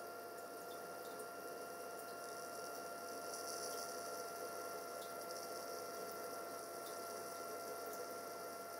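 Faint steady electrical hum with a thin, constant whine at two fixed pitches over a low hiss.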